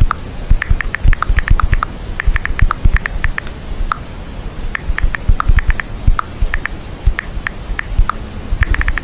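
A dog's paws tapping and pressing on a laptop keyboard and trackpad: quick runs of sharp clicks with soft thumps, in uneven bursts with short pauses.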